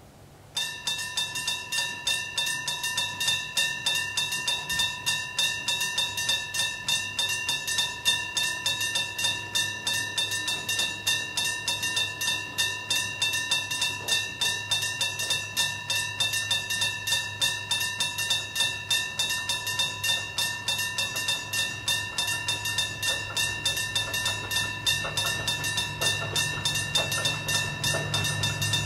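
Japanese level-crossing electric bell alarm (電鈴) ringing: a metal bell struck rapidly and continuously, starting about half a second in. Near the end the low rumble of an approaching KiHa 200 diesel railcar grows under the bell.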